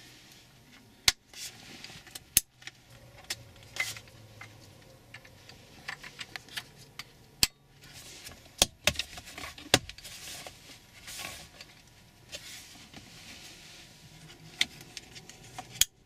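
Toyota RAV4 plastic console trim pieces and wiring-harness connectors being handled and clicked into place as the center console is reassembled: scattered sharp clicks and clacks among rustling.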